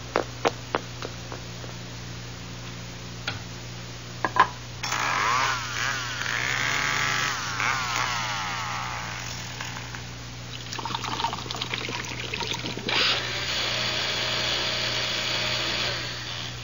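Sound-effect sequence of canned beans being opened with a chainsaw and blended. Footsteps and a couple of knocks come first. About five seconds in, a chainsaw revs up and down for about five seconds, followed by a brief pour, then a blender running steadily over the last few seconds.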